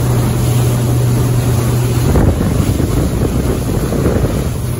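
Engine of an Alaska 500 fishing boat under way, a steady drone. About two seconds in, wind buffeting on the microphone and water noise cover the engine drone, which comes back near the end.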